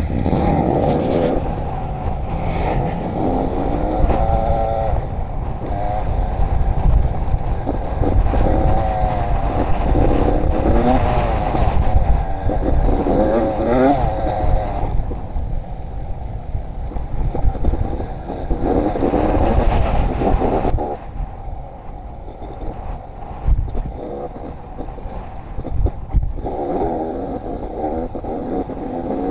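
Dirt bike engine running under way, revving up and easing off several times in rising and falling sweeps, over a heavy low wind rumble on the microphone.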